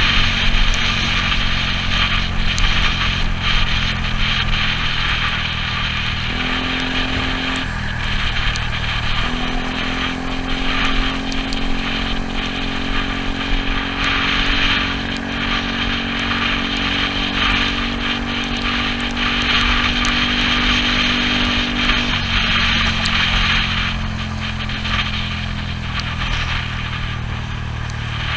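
Yamaha Cygnus 125 scooter's single-cylinder four-stroke engine running at a steady cruising speed, its pitch holding level, under loud wind and tyre hiss on a wet road.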